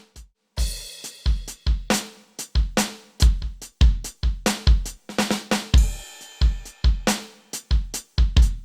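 Simmons SD100 electronic drum kit's built-in sounds playing a beat of kick, snare, hi-hat and cymbal, run through an HRK C2584 colour processor with transformer line driver cards.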